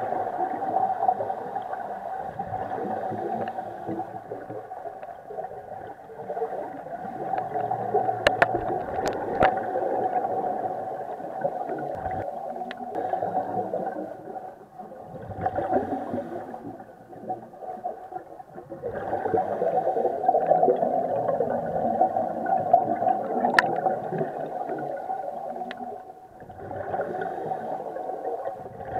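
Scuba diver's regulator exhaust bubbling underwater, heard through an action camera's waterproof housing: long bursts of bubbles lasting several seconds, separated by short quieter lulls between breaths. A few sharp clicks are mixed in.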